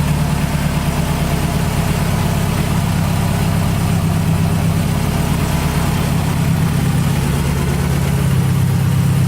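Subaru Forester's flat-four engine idling steadily.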